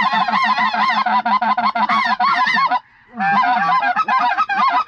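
Geese honking, many calls overlapping in a rapid, continuous chatter. It breaks off briefly near the middle and then resumes.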